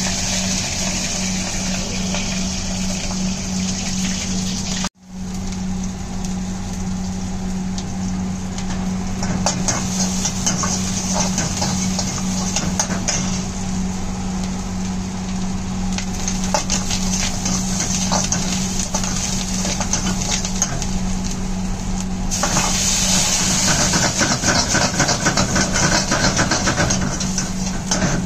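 Gas wok burner running with a steady hum, a metal ladle clinking and scraping in a carbon-steel wok, and food sizzling in the hot wok. The sizzling grows louder in the last few seconds. The sound cuts out for a moment about five seconds in.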